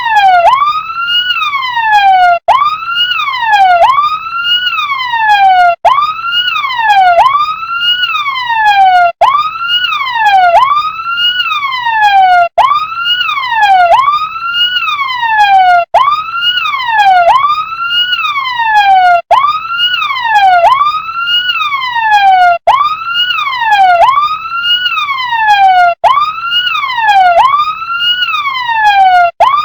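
Electronic siren of a toy RC fire truck wailing in a loop: each wail rises quickly and falls more slowly, repeating a little under every two seconds, with a brief cut-out after every second wail.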